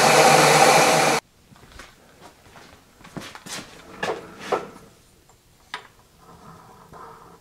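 A loud steady rushing machine noise that cuts off abruptly about a second in, followed by a few light metal clicks and knocks as a piece of steel is set and slid against the freshly milled step in a milling vise jaw.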